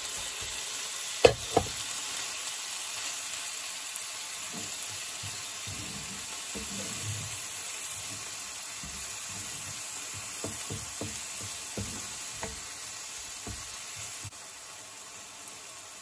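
A steak in butter with chopped onion and garlic sizzling in a hot nonstick frying pan, with a wooden spatula scraping and knocking against the pan as the onions are pushed around. Two sharp knocks come a little over a second in, and the sizzle drops a step near the end.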